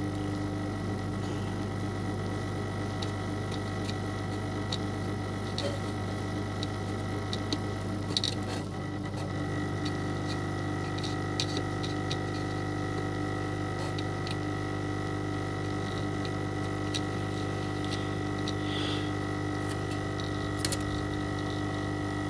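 Hot air rework gun's blower running steadily, a hum with a few faint ticks over it, as it heats the solder on a tablet's charging port to free the port from the board. Its tone shifts slightly about nine seconds in.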